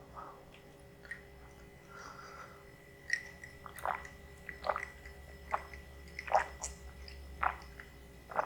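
Close-miked wet chewing and lip smacks of a person eating spicy instant noodles. After a quiet start, a run of about seven short smacks begins about three seconds in.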